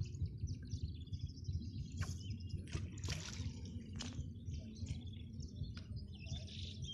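Small birds chirping and calling repeatedly over a steady low rumble.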